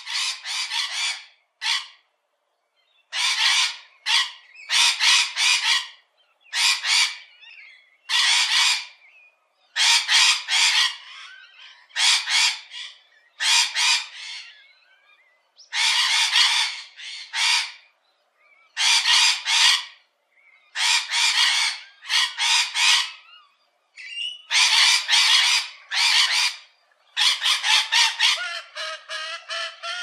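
Parakeets screeching: harsh, shrill squawks in quick clusters, with short pauses between them. Near the end the calls give way to a lower, steadier honking call.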